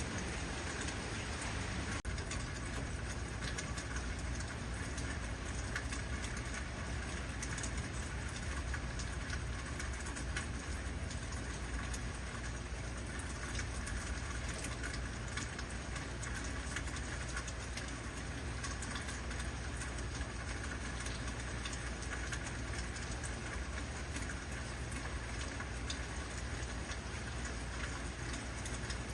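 Heavy rain falling steadily: a dense, even hiss of drops with a steady low rumble underneath.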